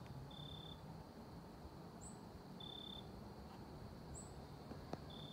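Faint calling insects: a steady high trill, with a short high chirp repeating three times about two and a half seconds apart.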